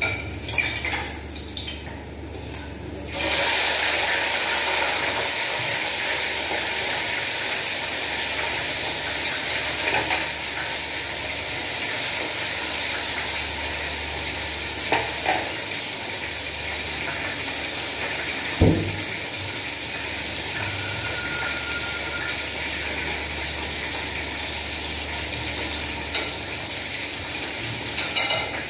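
Whole bakoko (sea bream) frying in hot oil in a pan: a steady sizzle that starts suddenly about three seconds in, after some clatter. Several sharp knocks of a utensil on the pan come along the way, the loudest about two-thirds through.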